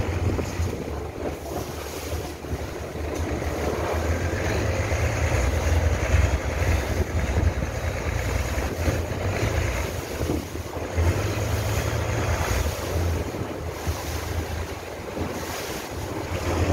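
Wind buffeting the microphone over the steady rush of water along the hull of a river boat under way.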